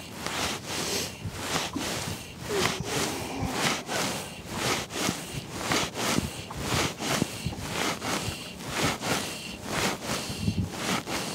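Fly line being stripped in by hand through the rod rings on the retrieve, a short rasping swish about twice a second, with wind on the microphone.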